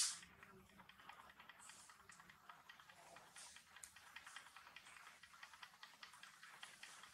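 Faint, irregular wet clicks and smacks of a young macaque chewing soft mango, a few a second, with one sharper click at the very start.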